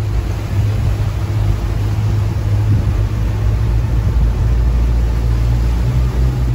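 Motorboat engine running steadily at cruising speed, with water rushing along the hull.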